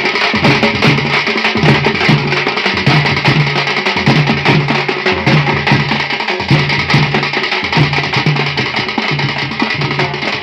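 Thappu (parai) frame drums beaten fast with sticks by several drummers, a dense run of sharp slaps over a low drum note that repeats in a steady rhythm.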